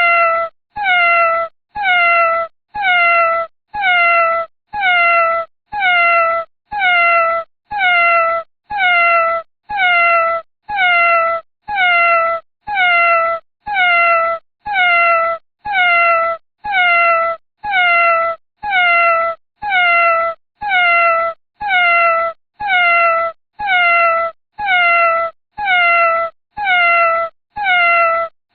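A domestic cat's meow, the same short call repeated about once a second, each one dipping in pitch toward its end.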